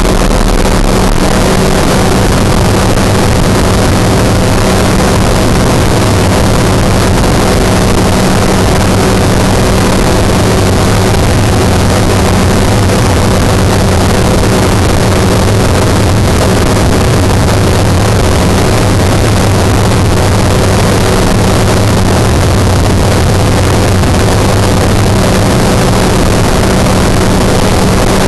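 Flex-wing ultralight trike's engine and propeller running steadily in cruise flight: a loud, even drone with a constant low hum under a heavy rush of air.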